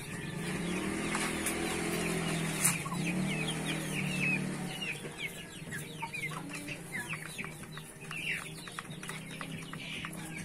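A flock of Ayam Cemani chickens clucking and giving many short, falling chirps while feeding. A steady low hum runs under the first half and then fades.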